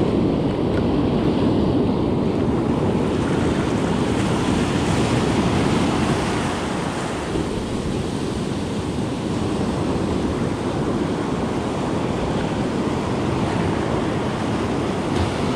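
Ocean surf breaking and washing up the beach in a steady rush of foam, with wind buffeting the microphone.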